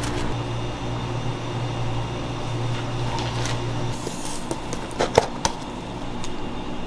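Steady background kitchen hum, then a few sharp clicks and taps about five seconds in as a small metal sieve is dipped and knocked against a plastic tub of powdered sugar.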